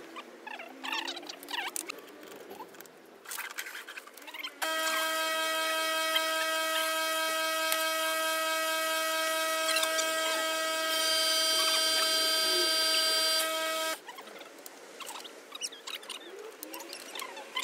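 Kärcher K7 pressure washer running: a steady hum with a high whine over it that switches on abruptly about four and a half seconds in and cuts off sharply some nine seconds later. A thin, higher whine joins for the last couple of seconds before it stops.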